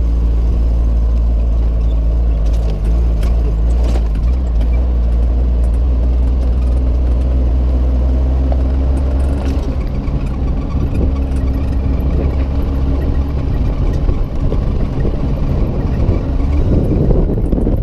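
A truck's engine running with a steady low hum, with the rougher, uneven noise of the vehicle moving over ground growing in the last few seconds.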